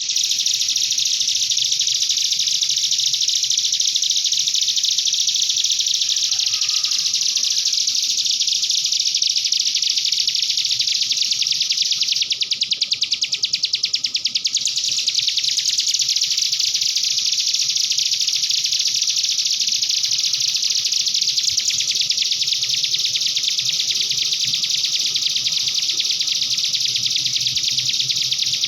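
Cigun songbird singing a continuous, high-pitched canary-like chatter of rapid trills without a pause, with a faster rattling stretch about twelve seconds in.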